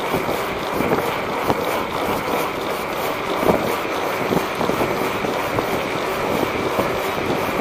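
Steady wind rush over the microphone with rolling tyre and road noise from riding along a paved street.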